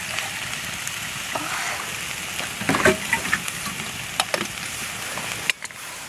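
Campfire crackling and hissing, with a few sharp knocks partway through; the sound drops off suddenly near the end.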